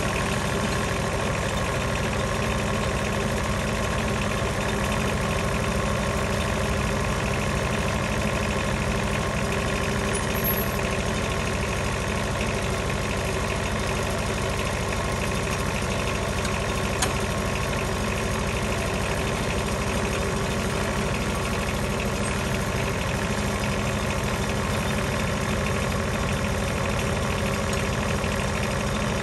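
Wood-Mizer LT15 portable sawmill's engine running steadily at an even pitch and level.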